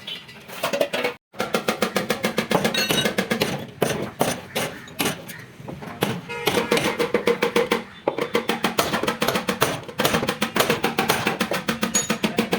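Fast, repeated hammer blows on steel, several strikes a second, each with a ringing tone. The sound drops out briefly about a second in.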